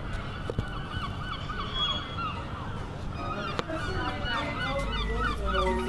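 Gulls calling: two runs of short, quick, repeated calls with a brief pause between, over a low background rumble.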